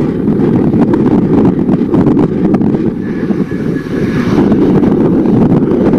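Airbus A320 on final approach, its jet engines a steady low rumble mixed with heavy wind buffeting on the microphone. A faint high whine comes in about three seconds in and lasts over a second.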